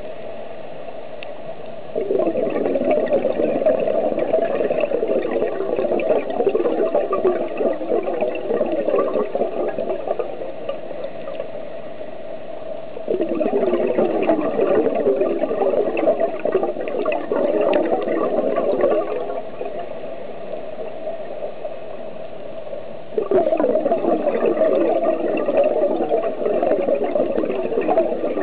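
Scuba diver's exhaled bubbles gurgling underwater, in three long bursts with quieter spells between them.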